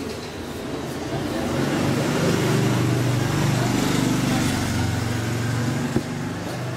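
A motor vehicle's engine passing by, rising to its loudest midway and then fading, with a single sharp click about six seconds in.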